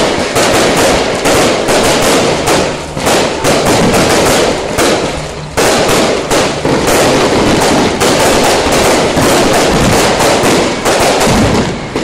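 A string of firecrackers going off in a rapid, continuous crackle of many small bangs, dropping briefly about five and a half seconds in and then starting again at full intensity.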